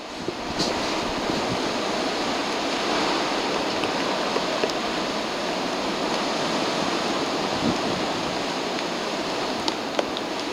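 Steady rushing noise, with two sharp taps near the end from a Magellanic woodpecker striking a tree trunk with its bill.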